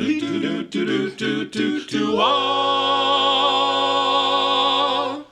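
Barbershop quartet of four male voices singing a cappella: a few quick sung syllables, then a rising slide about two seconds in onto a long held closing chord in close harmony, released together just before speech resumes.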